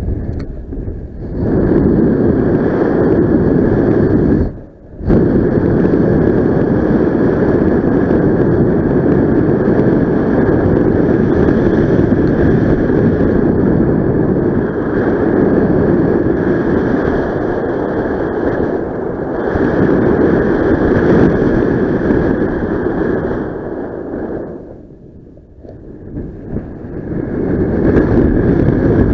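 Wind rushing over the microphone of a paraglider in flight, a loud steady buffeting. It briefly drops away about five seconds in and again in a longer lull near the end.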